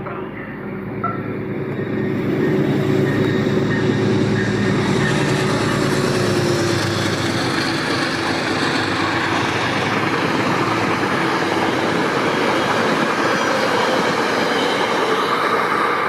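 Diesel passenger train passing at speed: the locomotive's engine drone in the first several seconds gives way to a loud, steady rush and clatter of the coaches' wheels on the rails.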